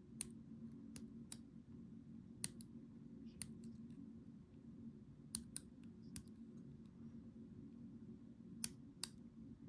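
Sharp, irregularly spaced clicks of small metal lock parts, the disassembled ASSA 700 cylinder's core and lock body, being handled and knocked together, about a dozen in all. A faint steady low hum runs underneath.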